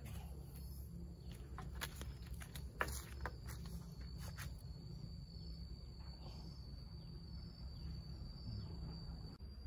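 An insect's thin, steady, high-pitched call sets in a few seconds in, over a constant low rumble, with a handful of sharp clicks in the first half.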